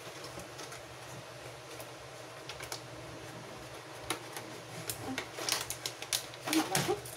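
Plastic packaging tray and cardboard box of a hair clipper kit being handled: light, scattered plastic clicks and rattles, growing busier near the end.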